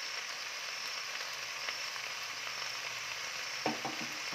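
Ivy gourd (kundru) sabzi frying in a metal pan, a steady sizzle. A short vocal sound comes near the end.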